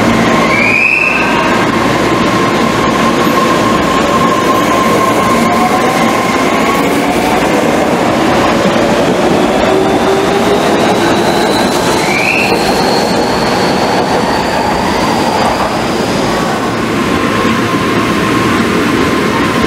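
Kobe Municipal Subway train pulling out of the underground platform: steady wheel-and-rail noise under a motor whine that rises in pitch as it gathers speed. There are two brief high squeals from the wheels, about a second in and again around twelve seconds.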